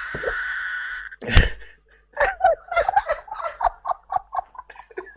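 Loud laughter heard over a video call: a breathy hiss for about a second, a sharp outburst, then a quick run of short laughs.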